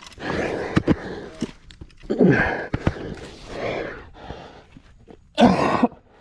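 A climber breathing hard, with several loud, strained exhalations and grunts whose pitch falls, from the effort of jamming hands and feet up a crack. A few sharp knocks come in between.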